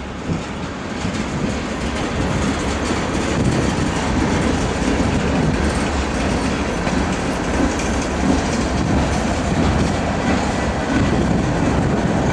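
Freight train rolling past, a steady rumble of steel wheels on the rails with clacking over the joints. It builds over the first few seconds and then holds.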